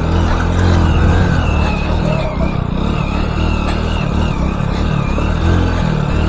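Hero Splendor motorcycle's single-cylinder four-stroke engine running steadily under light throttle as the bike rides slowly through a muddy, waterlogged track. A thin wavering whistle comes and goes above the engine.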